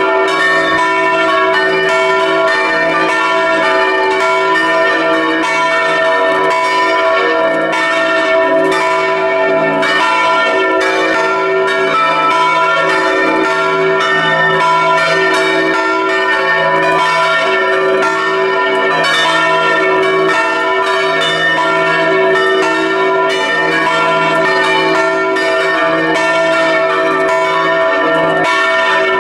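Several large church bells swinging and ringing together in a continuous peal, heard up close inside the belfry, their clapper strikes overlapping over a sustained ring of tones.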